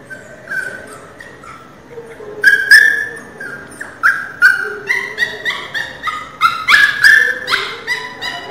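Newborn pinscher puppy crying: a run of short, high-pitched squeals and whimpers, coming two or three a second. The cries are faint at first and much louder from about two and a half seconds in.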